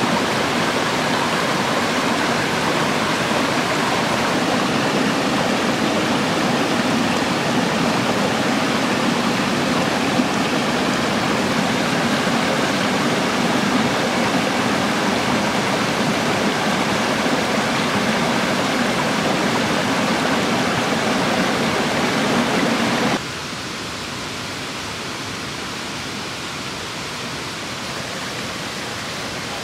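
Rushing stream water, a steady even noise. About 23 s in it drops suddenly to a quieter steady hiss.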